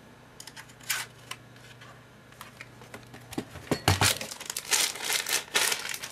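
Plastic packaging crinkling and rustling, with light clicks and knocks, as parts are handled during an unboxing; the handling gets busier and louder in the second half.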